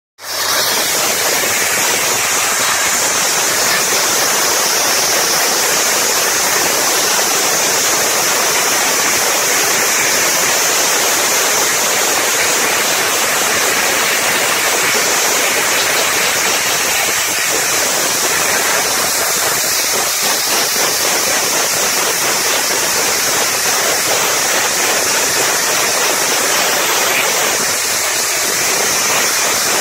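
Wet abrasive blasting nozzle spraying water, grit and compressed air onto a steel armoured hull: a loud, steady hiss without a break.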